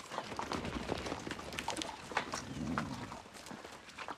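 Brush rustling and twigs snapping as a person pushes through forest undergrowth, among the hoof clatter of a mule train moving about. A short low sound comes about two and a half seconds in.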